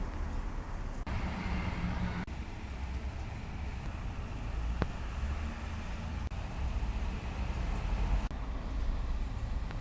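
Steady low background rumble, like distant traffic, with a single sharp click a little before five seconds in.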